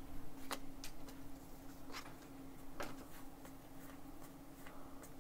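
Pokémon trading cards being handled and flipped through: sharp little clicks and taps at irregular intervals, over a steady low hum.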